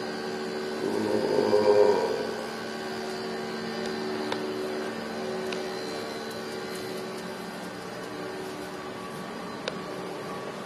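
Steady mechanical hum made up of several held tones, like machinery or ventilation running in a room, swelling louder for about a second near the start. A single sharp click comes near the end.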